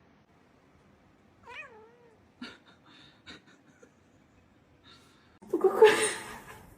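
A cat meowing: one short wavering meow about one and a half seconds in, then a louder, harsher yowl near the end.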